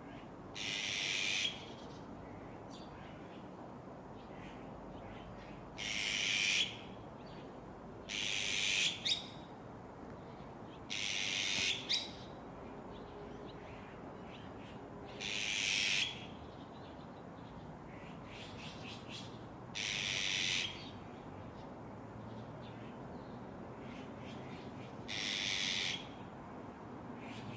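Azure-winged magpies calling: seven short, harsh calls spaced a few seconds apart, the third one doubled.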